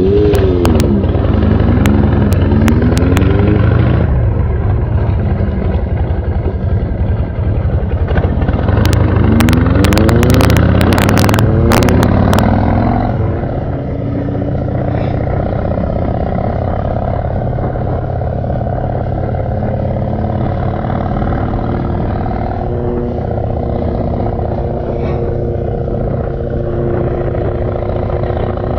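Harley-Davidson Shovelhead V-twin engine on a chopper, revving and pulling away with its pitch climbing as it accelerates, with a few sharp crackles, then settling into a steady cruise from about halfway through.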